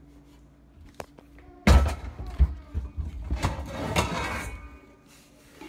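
Metal cooking pots clattering and ringing as a large pot is pulled out of a kitchen cabinet. The clatter starts suddenly a little under two seconds in, and there is a thud near the end.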